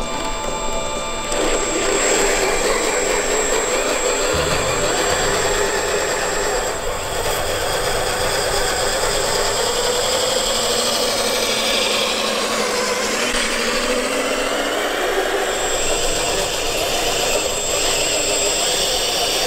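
Electric motor and drivetrain of a 1/10-scale RC crawler (a scale Jeep Cherokee XJ) whining as it drives over dirt. The pitch rises and falls with the throttle.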